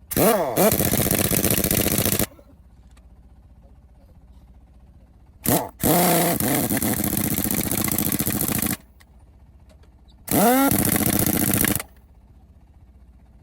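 Impact wrench running in three bursts, the longest about three seconds: each time the motor spins up with a quick rising whine, then hammers steadily and stops abruptly.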